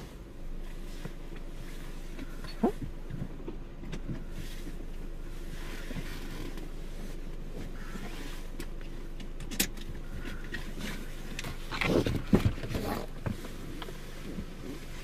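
Car engine running at a low, steady hum, heard from inside the cabin. A few scattered clicks, then a short cluster of louder knocks or rustling about twelve seconds in.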